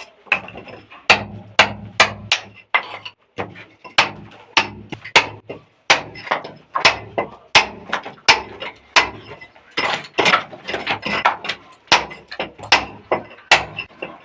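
Repeated hammer strikes, roughly two a second, each a sharp knock.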